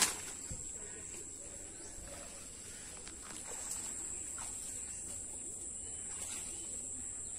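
Insects keeping up a steady high-pitched drone, with a short sharp click right at the start and faint rustling of leaves and plastic as the man works in the undergrowth.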